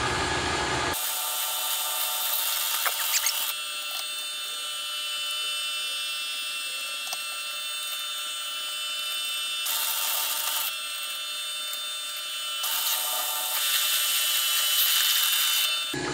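Three-phase drill press running with a steady whine while drilling holes in a metal mount. Hissing cutting noise comes in about a second in, again around ten seconds, and from about thirteen seconds until near the end.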